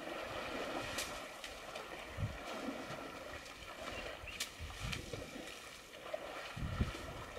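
Herd of African elephants wading and drinking in a waterhole: faint water sounds with a few soft low thumps and a couple of brief ticks.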